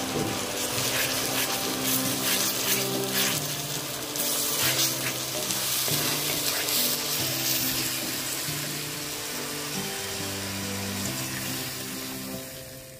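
Onions and spice paste sizzling in hot oil in a wok, stirred with a wooden spatula that scrapes the pan now and then.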